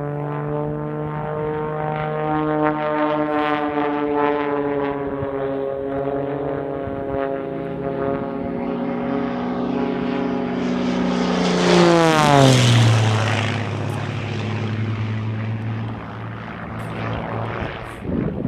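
Propeller-driven aerobatic display plane's piston engine droning overhead. About twelve seconds in it passes close and is at its loudest, and the engine pitch drops sharply as it goes by, then settles to a lower steady drone.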